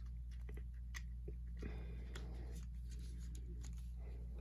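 Fingers picking and prying at a small cardboard box that will not open: scattered light clicks and taps, with a scraping rustle about one and a half seconds in and again near the end, over a steady low hum.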